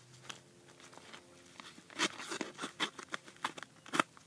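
A mailed package being torn open by hand: paper or plastic packaging crinkling and tearing in scattered rustles, busier from about two seconds in, with a sharp snap near the end.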